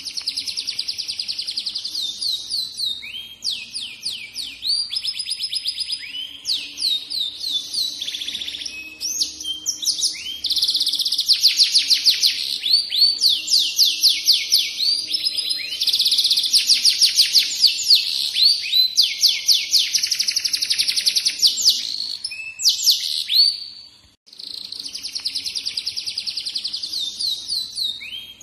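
Domestic canary singing a long, continuous song of rapid trills and rolling runs of repeated high notes, with a brief pause near the end.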